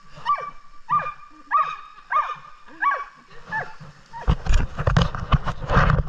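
Siberian husky giving about six short whining cries, each rising and falling in pitch, one every half second or so. Near the end, a loud rush of noise takes over.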